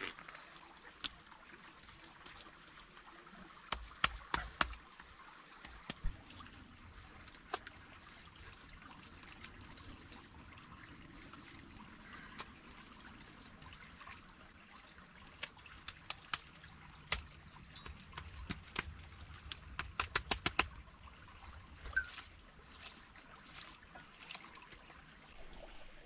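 A small stream trickling steadily, with scattered sharp clicks and taps from hands working wet mud among stones and wood rounds, including a quick run of about eight clicks about three-quarters of the way through.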